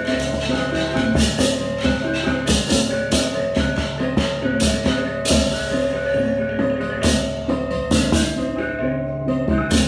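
Balinese baleganjur gamelan playing loud, fast processional music. Clashing ceng-ceng cymbals crash again and again over driving drums, with a steady metallic ring from gongs.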